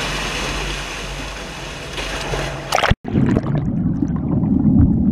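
Water rushing and splashing into a capsizing training cabin as it goes under in a pool. About three seconds in, it breaks off suddenly into muffled underwater churning and bubbling, deep and dense.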